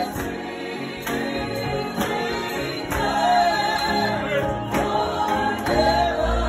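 Two women singing a gospel song in harmony with piano accompaniment, holding long notes.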